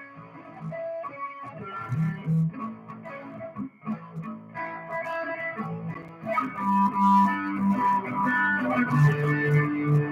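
Electric guitar played live, picking a run of single notes and chords, getting louder about six seconds in.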